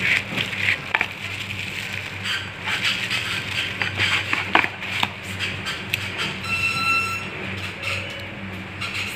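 Bubble wrap and a plastic bag crinkling and rustling as a phone replacement screen is unwrapped by hand, with scattered clicks, over a low steady hum. About two-thirds of the way through, an electronic tone sounds steadily for about a second.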